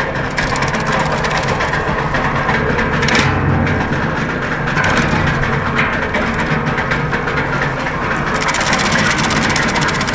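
Tractor-driven PTO branch shredder running under load, its steady engine hum overlaid with dense crackling as branches are chewed through the steel feed chute.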